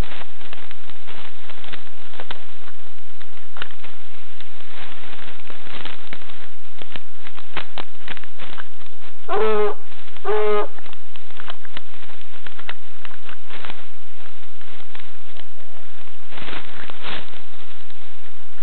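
French hound giving two short bays, one right after the other, about halfway through while following a wild boar's scent trail on a lead. Constant rustling and crackling of brush underneath.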